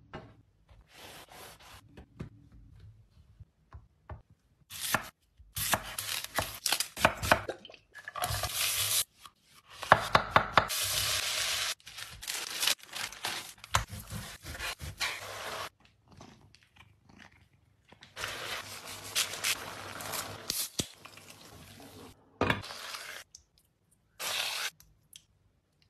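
Close-up kitchen food-preparation sounds in short bursts, cut off abruptly by silent gaps: a metal baking tray handled, baking paper crumpled and crinkled, and a spoon scooping thick sauce onto buns.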